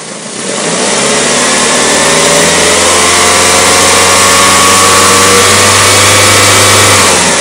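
Car engine revved at the throttle and held at raised revs for about six seconds, then let back down to idle near the end, during a charging-voltage test of a suspect alternator.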